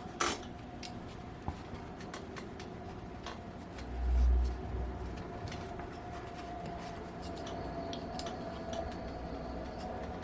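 Small metal clicks and taps of a Raduga 10RU two-stroke glow engine's parts being handled on a workbench, with a sharper click near the start and a low thump about four seconds in.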